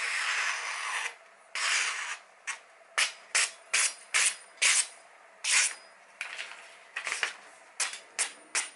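Kitchen knife slicing down through a held sheet of printed paper, the usual paper test of a knife's sharpness. Two longer swishing cuts come first, then a run of quick short cuts, about two or three a second.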